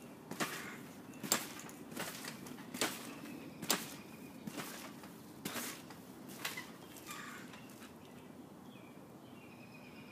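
Trampoline bouncing: a sharp thump of the mat with each bounce, about one a second, nine or so in a row, stopping about three-quarters of the way through.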